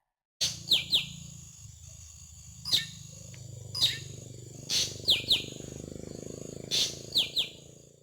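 A bird calling with sharp, quickly falling chirps, mostly in pairs, with a few single sharp notes between them. A steady low hum runs underneath.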